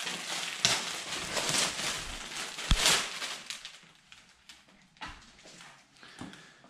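Packaging rustling and crinkling as a folded banner is unwrapped and unfolded, with a few sharper crackles in the first three seconds, then quieter light handling clicks.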